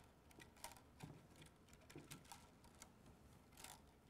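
Near silence with faint, scattered clicks and light rustling of ABS plastic filament being handled and pushed through a guide clip on a 3D printer's frame.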